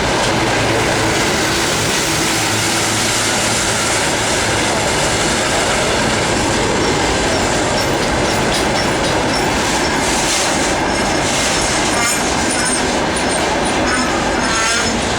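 Freight train wagons rolling past, a steady loud rush of wheel and rail noise. Thin high squeals from the wheels come in over the last few seconds.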